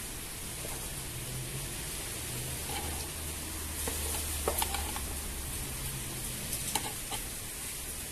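Wooden spatula scraping and tapping in a nonstick frying pan, a few light clicks and scrapes over a steady hiss.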